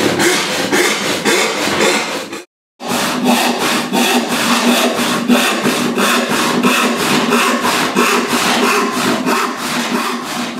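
Western handsaw rip-cutting a softwood board with rapid, even back-and-forth strokes. The sawing breaks off briefly about two seconds in, then carries on at the same pace.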